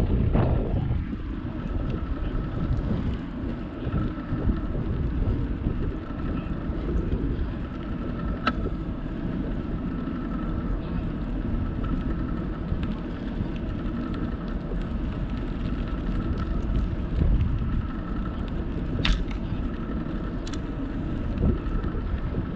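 Wind buffeting the microphone on a moving bicycle, with a steady low rumble of tyres rolling on an asphalt trail. A few sharp ticks come through, two of them close together near the end.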